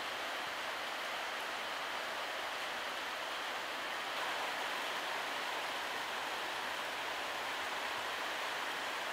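Steady hiss of rain falling on a station platform and tracks, even and unbroken.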